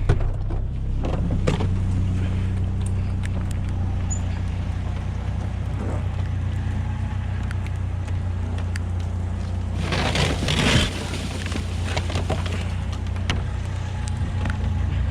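Vehicle engine running steadily, a low even hum, with a brief burst of rustling or handling noise about ten seconds in.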